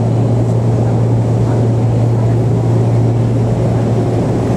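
Loud, steady low machine hum over a rumbling noise, easing off near the end.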